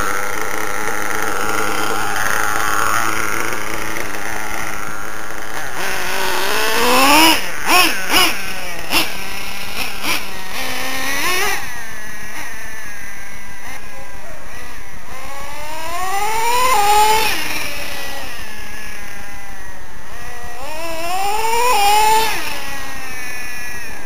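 Radio-controlled nitro truck's small glow-fuel engine running at a high pitch, revving up in repeated rising bursts as it accelerates, with a cluster of sharp revs about a third of the way in and longer rising revs later on.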